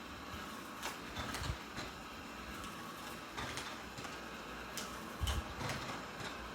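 eufy RoboVac 11S Max robot vacuum running steadily, with scattered clicks and two low thumps.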